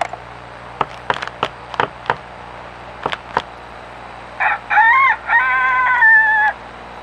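Rooster crowing in a pitched call of several rising-and-falling segments, about two seconds long and ending on a held higher note, starting a little past the middle. Before it comes a scattered series of sharp clicks.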